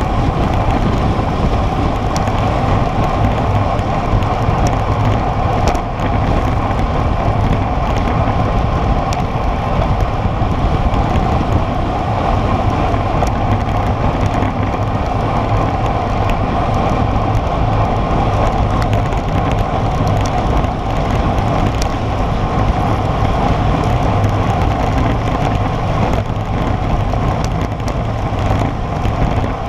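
Steady loud rush of wind over a bike-mounted camera's microphone, mixed with the hum of road-bike tyres on asphalt at about 45 km/h.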